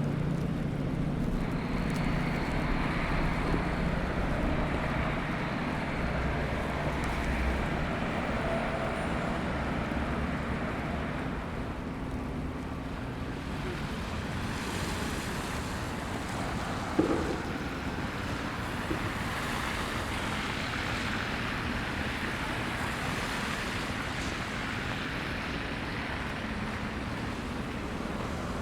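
City street traffic noise in a snowstorm: a steady hiss of vehicles passing on snowy streets, with wind, a low engine hum in the first several seconds and one brief knock about 17 seconds in.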